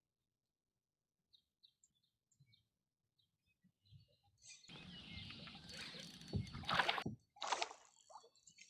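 A few faint bird chirps, then about two seconds of loud splashing and rustling around a small boat, with a couple of sharp knocks, followed by a shorter burst of the same.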